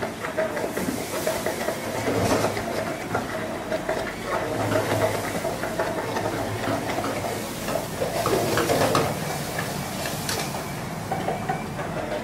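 Electric immersion blender running in a tall plastic jug of thick mixture, its motor and churning sound rising and falling as it works.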